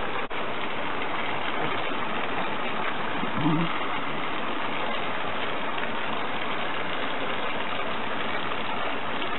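Steady rushing hiss of a water jet from a nozzle on a micro-hydro feed pipe, spraying hard against a wooden lever and splashing into the stream while its thrust is measured.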